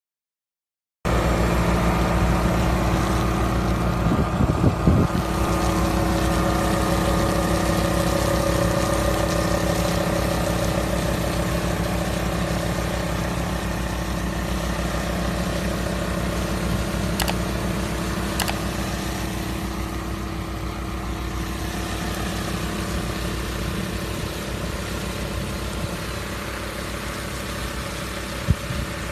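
Tractor engine running steadily while pulling a slurry tanker spreading manure, with an even pitch and slowly growing fainter. Two light clicks come about two-thirds of the way through.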